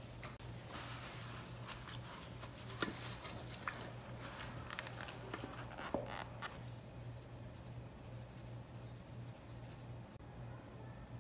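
Hands rubbing and squishing vinegar-soaked raw chicken wings in a stainless steel bowl, with wet handling noise and a few sharp clicks against the metal. It goes quieter a little past halfway. A low steady hum runs underneath.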